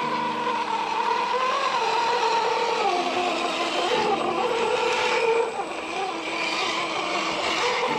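Brushless electric motors of two RC scale crawler trucks whining as they drive through a shallow creek, the pitch wavering with throttle, over the sound of running water.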